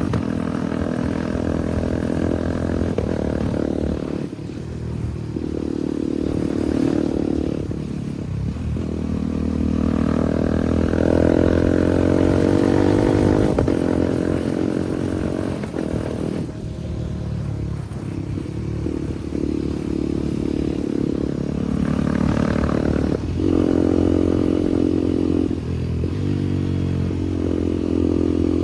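KTM Duke 390 Gen 3's single-cylinder engine running loud through an SC Project aftermarket exhaust, its pitch rising and falling with the throttle. The sound drops off sharply three times, about 4, 16 and 23 seconds in, then builds again.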